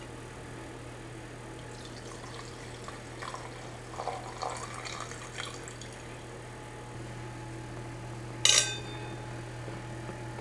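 Tableware being handled: a few small clinks and taps, then one sharp ringing clink, like a glass or cup set down, a little over eight seconds in, over a steady low hum.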